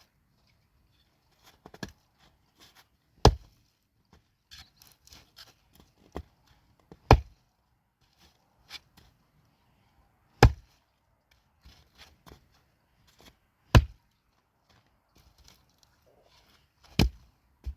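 Chopping: five heavy blows about every three and a half seconds, with lighter knocks and rustling in between.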